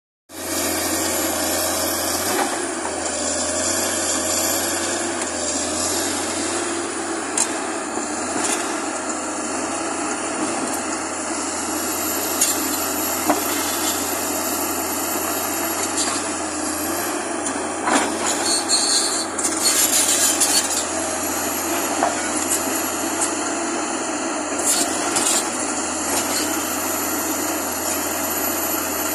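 Hyundai crawler excavator running steadily under working load while its bucket digs rocky soil, with scattered knocks and a louder stretch of scraping and clattering rock about two-thirds of the way through.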